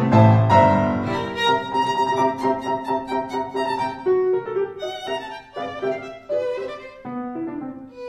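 Instrumental background music: a melody of distinct, changing notes, with deep low notes that drop away about a second in.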